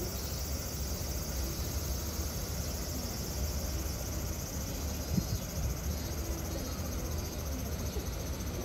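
Steady high insect drone over a low background rumble, with a short bump about five seconds in.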